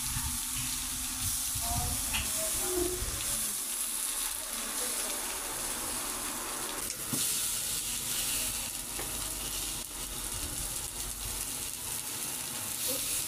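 Long green peppers and tomato slices sizzling on an electric sac griddle, with a steady frying hiss throughout. A wooden spatula turns and stirs them now and then.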